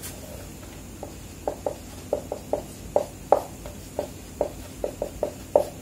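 Marker pen writing on a whiteboard: a run of short separate strokes, about three or four a second, starting about a second in.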